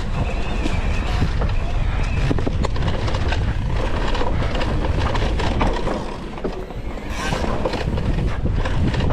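Mountain bike riding down a dirt forest trail, heard from the bike's action camera: wind buffeting the microphone and a steady rumble of tyres over the ground, with frequent clicks and rattles from the bike as it hits roots and bumps. It eases off briefly about two-thirds of the way through.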